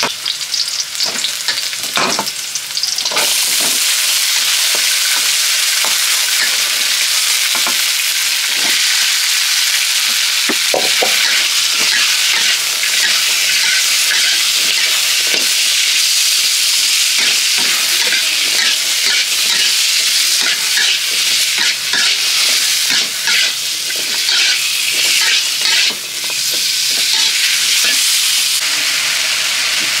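Stir-frying in a wok: a steady frying sizzle with frequent scrapes and clinks of a metal spatula on the pan as sliced banana stem is tossed with chillies, garlic and shallots in hot oil. The sizzle grows fuller about three seconds in.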